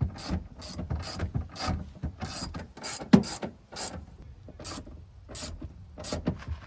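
Hand ratchet clicking in short, uneven strokes, roughly two a second, as the seat's mounting bolts are run down tight.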